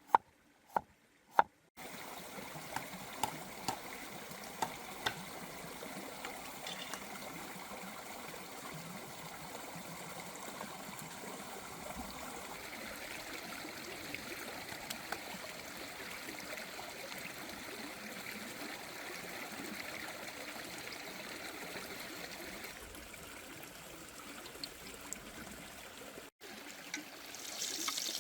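A few sharp knocks, then steady running water trickling like a small stream, with scattered light clicks.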